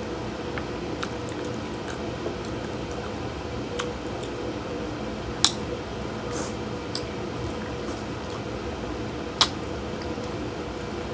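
Wet, squishy eating sounds of boiled crawfish being peeled and picked, with scattered small ticks and two sharp clicks, about five and nine seconds in, of shells cracking or utensils knocking. A steady low hum runs underneath.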